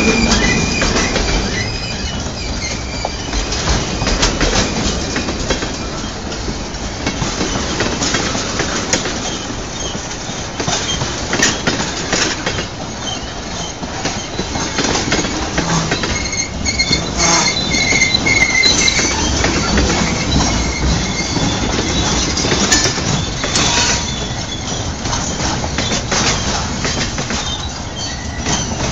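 Montreal Maine & Atlantic freight cars rolling steadily past, their steel wheels clacking over the rail joints, with a high wheel squeal coming and going, strongest a little past the middle.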